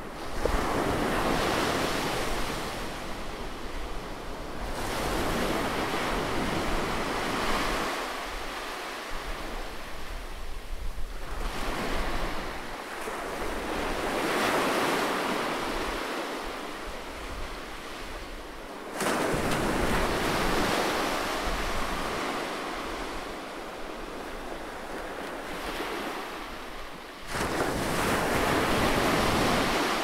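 Ocean waves breaking and washing up a sandy beach, rising and falling in about five surges several seconds apart.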